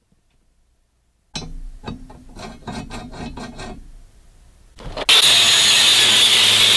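A run of short scraping strokes, then about five seconds in an angle grinder's abrasive cut-off wheel starts cutting steel clamped in a vise: a loud, steady, high hiss of the wheel grinding through the metal.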